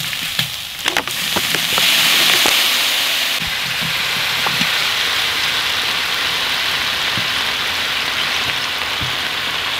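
Spice paste frying in a hot metal wok: a few light ticks, then about a second in a steady sizzling hiss starts up, loudest just after it begins and then settling a little.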